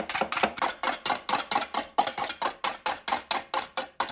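Wire balloon whisk beating two egg whites by hand in a stainless steel bowl, an even run of quick strokes about five a second, as the whites are whipped toward a soft stage.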